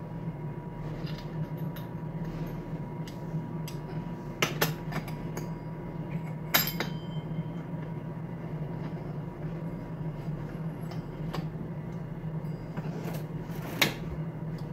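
Parts of a Poulan Pro chainsaw being handled and fitted during reassembly: scattered clicks and clinks of metal and plastic parts, the loudest a double click about four and a half seconds in, one about six and a half seconds in, and one near the end. A steady hum runs underneath.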